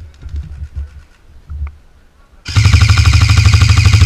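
Airsoft electric rifle (VFC HK416 AEG) firing one full-auto burst of about a second and a half, starting about two and a half seconds in: a fast, even rattle of rapid shots that cuts off sharply.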